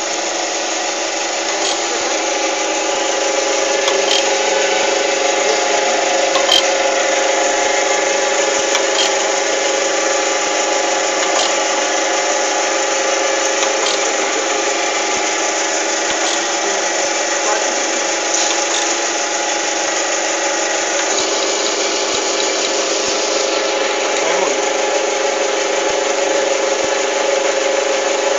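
Jones & Shipman surface grinder running steadily: a machine hum with hiss, and a faint tick about every two and a half seconds.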